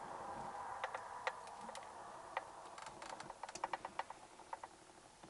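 Faint, small sharp clicks and ticks as an old electric clothes iron is handled, scattered at first and then coming in a quick cluster about three seconds in.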